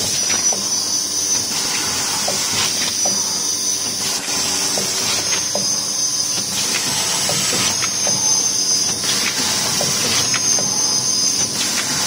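Pouch packing machine for zipper bags running: a steady hiss of compressed air with light clicks of its pneumatic parts repeating every half second to a second, over a constant low drone.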